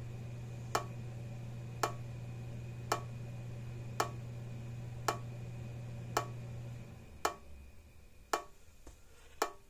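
Hol-Dem Super Power 980 solid-state electric fence charger ticking with each output pulse, a sharp click about once a second, now without arcing across itself: the gaps have been widened, perhaps far enough. A low steady hum runs underneath and stops about seven seconds in.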